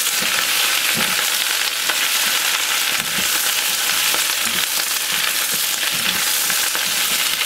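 Bok choy stir-frying in hot oil and garlic: a steady sizzling hiss, with the leaves tossed and stirred by a wooden spatula and chopsticks in the pan.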